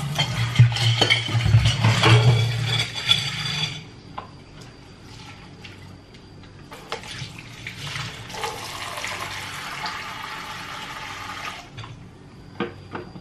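Kitchen tap running into a stainless steel sink while dishes are washed by hand, with scattered light clinks of dishes. The water runs hard for about the first four seconds, is shut off, and runs again from about eight to twelve seconds in.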